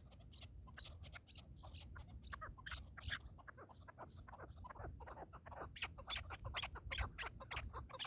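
Partridges calling: a quick, continuous run of short clucking notes, several a second, some sliding down in pitch.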